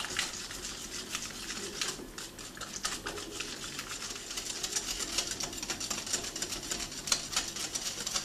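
Wire balloon whisk beating a mascarpone, egg-yolk and sugar mixture by hand in a glass bowl: a steady run of rapid ticks and scrapes as the wires hit the glass.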